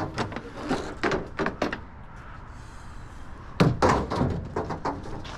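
A run of sharp knocks and clatters, with a louder cluster of knocks about three and a half seconds in.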